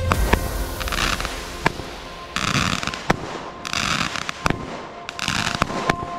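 Consumer fireworks going off: sharp bangs about every one and a half seconds, with short bursts of hissing crackle between them.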